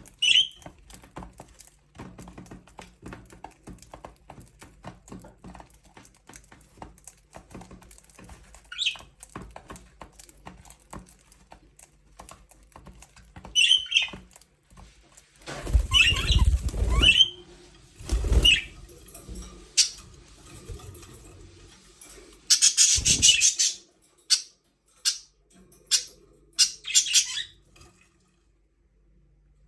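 Budgerigars chirping in short scattered calls over a steady patter of small clicks and scratches. Several louder bursts of noise come past the middle, including wing flapping.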